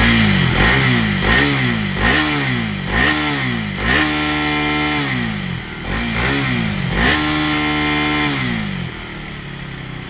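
KTM 250 motorcycle's single-cylinder engine being revved with the stock silencer fitted. It goes through a quick run of short throttle blips, then two longer held revs, and settles back to idle near the end.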